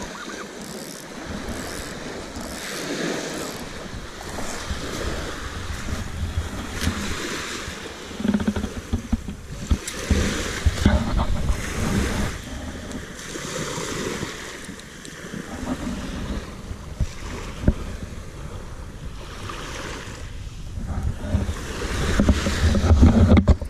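Small waves breaking and washing over a pebble beach, with wind buffeting the microphone in gusts. Scattered short clicks and rustles of handling come through, loudest in the middle and near the end.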